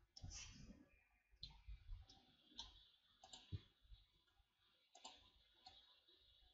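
Faint computer mouse and keyboard clicks, about ten at irregular intervals, over near silence; the loudest comes about three and a half seconds in.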